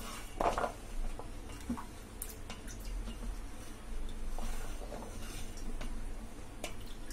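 Wet raw potato sticks lifted by hand out of a steel bowl of cold water: water sloshing and dripping, with scattered light knocks as the sticks are set down on a plate.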